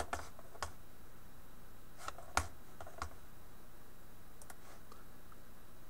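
A few scattered clicks of a computer mouse, about eight in all, the loudest about two and a half seconds in, over a faint steady low room hum.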